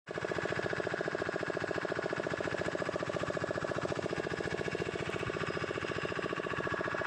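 Fishing boat's engine running steadily with a fast, even chugging pulse.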